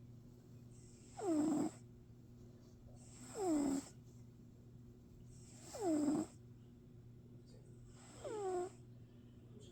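A cat snoring: four snores about two and a half seconds apart, each a short breath with a whistling tone that falls in pitch.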